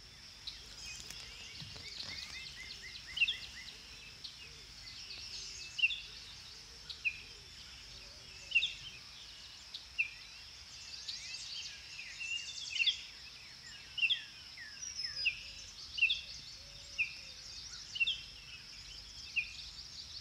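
Wild birds singing, with short sharp chirps, many falling in pitch, repeating about once or twice a second over a steady faint high hiss.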